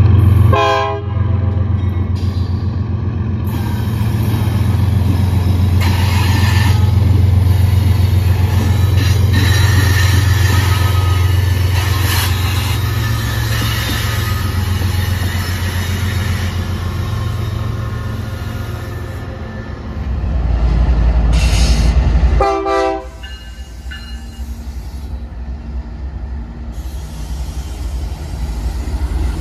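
BNSF freight train's GE diesel locomotives passing close by, their engines running with a loud, deep drone that eases off sharply about three-quarters of the way through. Two brief horn toots sound, one about a second in and one just before the drone drops.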